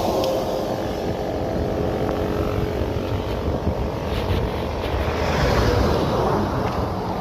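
Highway traffic passing close by: a steady rush and rumble of tyres and engines, with an engine note falling in pitch near the start as a vehicle goes past.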